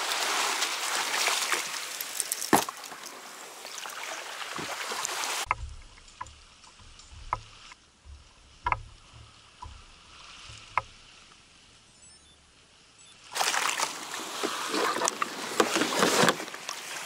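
Small waves washing on a sandy shore and water sloshing around a fishing kayak in shallow water. In a quieter middle stretch, wind buffets the microphone with a low rumble and a few sharp clicks are heard.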